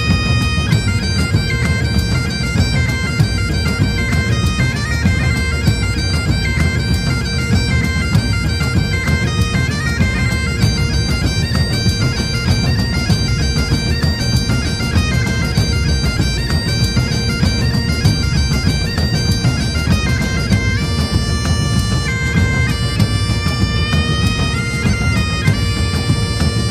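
Bagpipe music: a pipe melody moving over a steady drone, with a dense drum beat underneath.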